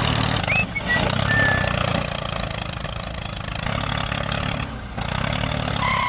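Diesel tractor engine running steadily at a low, even pitch, with a few short high chirps about a second in.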